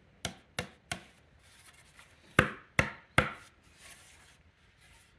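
Sharp knocks on wood in two sets of three, each about a third of a second apart, the second set louder, followed by a faint rustle.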